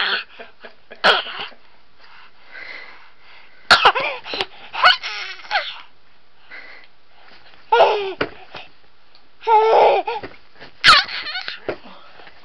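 A baby's short, excited squeals and vocal bursts, about six in all with quiet gaps between, several gliding down in pitch.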